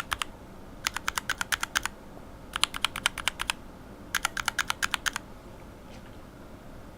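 Unlubed linear mechanical keyboard switches, with Cherry retooled bottom housings and Revo White stems and springs under different top housings, pressed and released in quick succession. Three runs of about ten sharp clacks each, the first about a second in, after the end of an earlier run at the very start.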